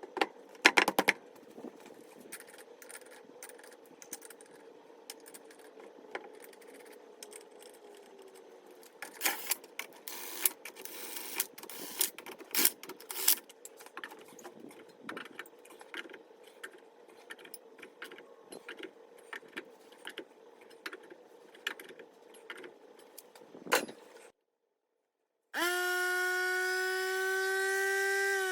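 Scattered metal clicks, clinks and scrapes, busiest about a second in and again from about 9 to 14 seconds. Near the end a small electric tire inflator starts up and runs with a steady droning hum, its pitch creeping up slightly as it pumps air into the tire.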